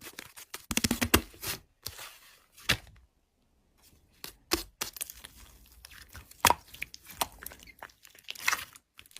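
Slime being squished and pulled by hand, making a run of sticky clicks and crackling pops, with a short pause about three seconds in.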